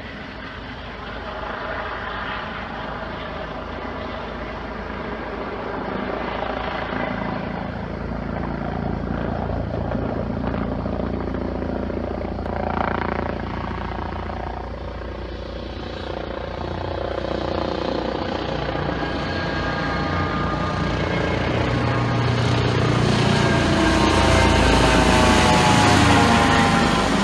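Helicopter flying with its rotor and turbine running steadily, growing louder as it approaches and passes overhead near the end, where its whine bends in pitch.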